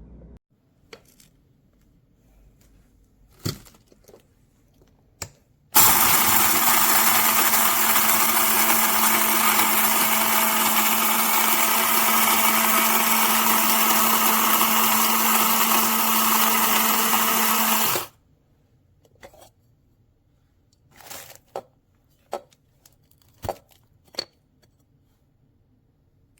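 Cordless electric blade coffee grinder running steadily for about twelve seconds, a loud even whir with a low hum under it. It starts sharply about six seconds in and cuts off abruptly. A few scattered clicks and knocks come before and after it.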